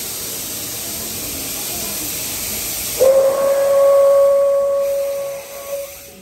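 A small steam locomotive hissing steam, then sounding its steam whistle: one long steady note that starts sharply about three seconds in and fades out near the end, as the train pulls away.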